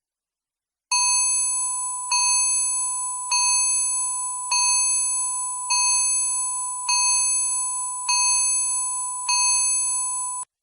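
Timer alarm going off: a chime struck eight times, about once every 1.2 seconds. Each ring fades a little before the next, and the last cuts off suddenly.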